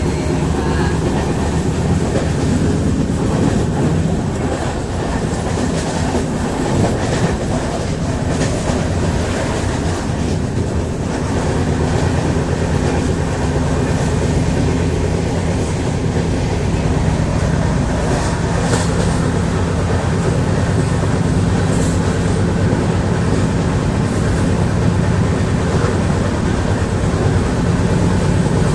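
Steady, loud rumble and rattle of a moving vehicle, with a low hum throughout.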